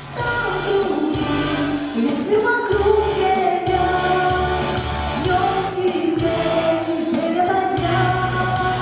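A girl singing a pop song over a backing track with a steady bass and beat.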